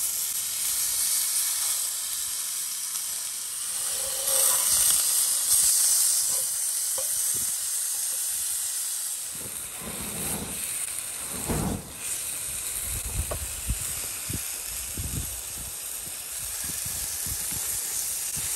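Whole bluegill frying on hot cast iron: a steady sizzling hiss, louder for a couple of seconds about four seconds in. Low rumbles of wind on the microphone come in during the second half.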